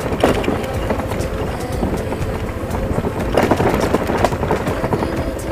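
Yamaha NMAX scooter's single-cylinder engine running as it rides over a bumpy dirt track, with a steady rumble and irregular knocks and rattles from the bumps.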